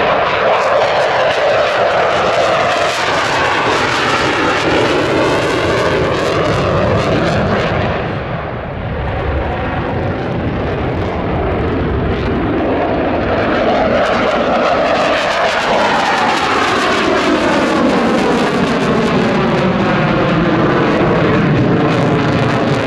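Dassault Rafale C jet fighter's twin Snecma M88 turbofans running at display power in a continuous loud roar with a sweeping, phasing whoosh as the jet passes and turns. The sound thins briefly about eight seconds in, then swells again as the jet climbs with afterburners lit near the end.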